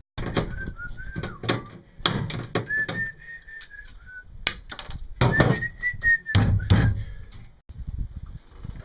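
A man whistles a short tune in three phrases while working. Sharp metallic clicks and knocks run through it from a hand pop-rivet tool and metal parts being handled.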